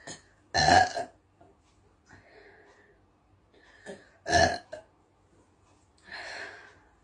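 A girl burping: two loud, short burps about half a second and four seconds in, then a softer, longer burp near the end.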